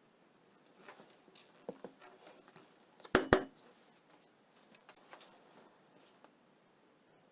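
Light clicks and taps of things being handled, with two sharp knocks in quick succession about three seconds in.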